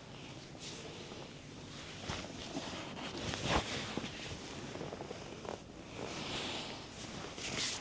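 Hands rubbing and pressing over skin during a body massage: a soft scraping, rustling friction, with a few short taps or knocks.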